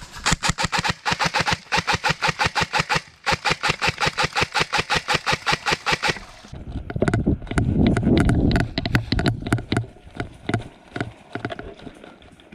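Airsoft gun firing a fast, even string of shots, about six a second, with a short break about three seconds in; the shooter says he is dry firing, cycling the gun without BBs. The firing stops about halfway through, and gear rustling and scattered clicks follow.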